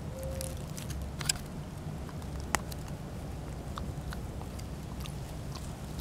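A puppy chewing and gnawing, making scattered small crunching clicks, with a sharper click about a second and a half in and another about two and a half seconds in.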